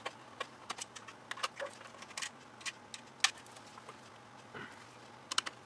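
Irregular light clicks and taps of a screwdriver undoing small screws on a flat-screen TV's circuit boards, with one sharper click about three seconds in.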